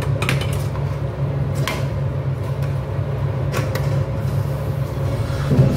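A utensil clinking and scraping against a stainless steel pot as shredded cabbage is stirred: a few sharp knocks, then a heavier thump near the end, over a steady low hum.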